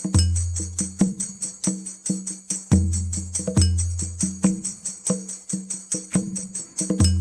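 Background music with a steady beat: tambourine jingles and light percussion over deep bass notes.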